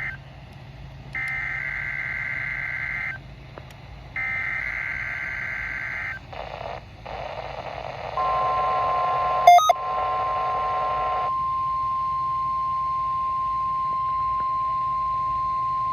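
NOAA Weather Radio receiver sounding an EAS/SAME test: three short bursts of warbling data tones over radio hiss. About eight seconds in, the steady single-pitch weather radio warning alarm tone starts and holds, with one sharp click just after it begins.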